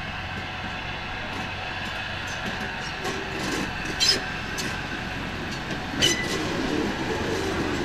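A small diesel railcar rolls slowly past with its engine running, its wheels clacking sharply over rail joints twice, about 4 and 6 seconds in.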